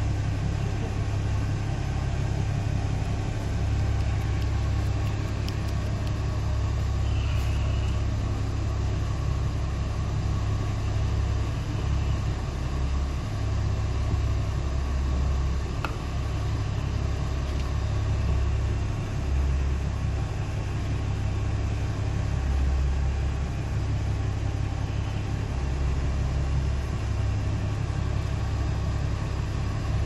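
Fishing boat's engine running steadily at idle, a continuous low rumble.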